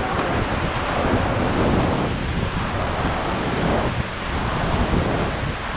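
Rushing whitewater of a river rapid churning around an inflatable raft, with wind buffeting the action camera's microphone; a steady, loud rushing noise.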